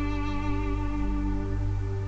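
Slow ambient background music: a held chord over a steady low drone.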